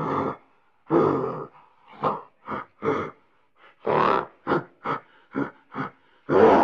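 An animal giving a quick, irregular series of short calls, about a dozen of them, each well under a second long.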